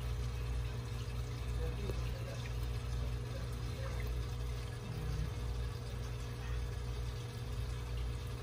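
Air-driven sponge filter in an aquarium, bubbling steadily as air lifts water up its tube, over a steady low hum.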